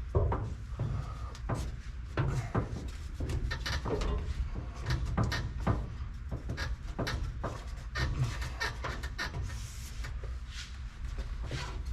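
Irregular knocks, taps and rubbing as rubber D-channel weatherstripping with metal gripping inserts is worked by hand onto the pickup's door-opening pinch weld.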